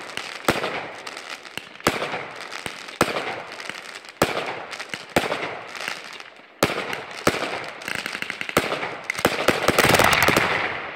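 Fireworks display: aerial shells bursting with sharp bangs about once a second, each followed by crackling. Near the end the bangs come thick and fast into dense crackling, the loudest part.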